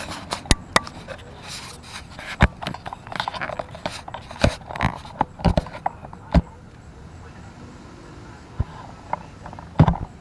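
Irregular sharp knocks and clicks, several in quick succession in the first six seconds, with some rustling between them. They then thin out to a few near the end.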